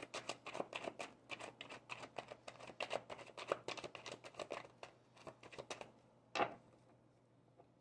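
A deck of tarot cards being shuffled by hand: a rapid run of soft card clicks for about six seconds, then one single louder tap.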